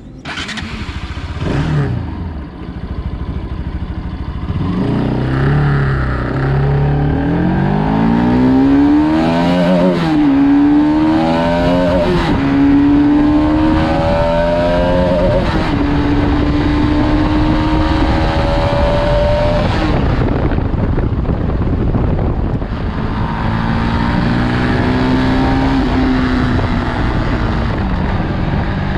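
Bajaj Pulsar RS200 motorcycle on its stock exhaust, its single-cylinder engine running and revving, the pitch climbing and falling back several times, with steadier stretches between, and a quieter patch a little past two-thirds through.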